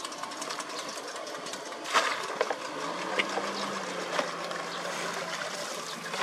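Water splashing and sloshing as a long-handled net is pushed through floating trash and debris, with a sharp splash about two seconds in. A steady low motor hum comes in about three seconds in.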